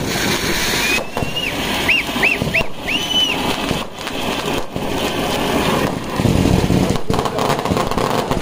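Loud, steady crowd din at an outdoor unveiling, with several short whistles about one to three seconds in.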